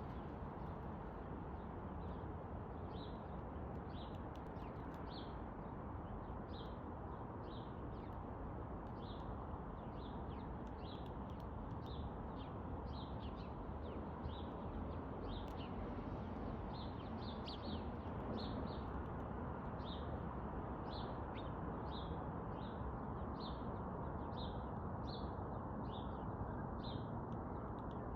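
Downy woodpecker giving short, high single-note calls, repeated irregularly about once or twice a second, over a steady background rumble.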